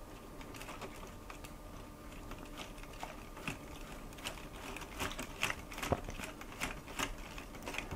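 Plastic LEGO Technic gears and large linear actuators of a Compact Crawler Crane, turned by hand to raise the boom, giving irregular faint clicks and ticks that come thicker after about three seconds.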